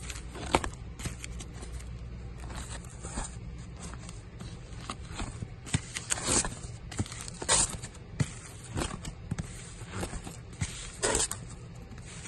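Vinyl LP records in plastic sleeves being flipped through one after another, each record giving a short sliding, scraping swish of plastic against plastic, at an uneven pace. The loudest come about six, seven and a half and eleven seconds in, over a steady low hum.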